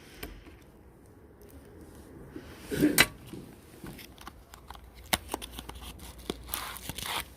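Handling of small phone parts and tools on a workbench: a few sharp clicks and taps, the loudest about three seconds in, with light rustling between them.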